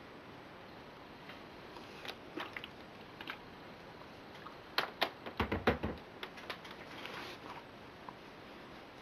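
Handling noises of a shirt being moved and turned over on an ironing board: scattered light clicks and fabric rustling, with a quick run of knocks and a dull thump about five to six seconds in.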